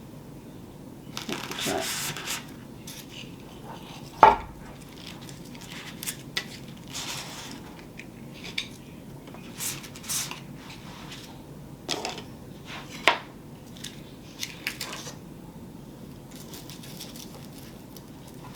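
Hands handling small hard items on a work surface: a rustle about a second in, then scattered sharp clicks and knocks, the loudest about four seconds in.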